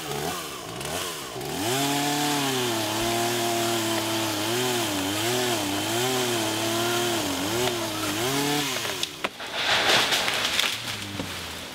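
A chainsaw engine revs up, runs with its pitch dipping and rising repeatedly as it cuts into tree branches, then stops. A loud burst of noise about a second long follows.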